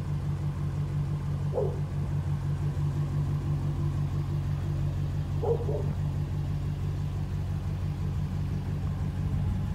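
A vehicle engine idling, a steady low hum that holds without change.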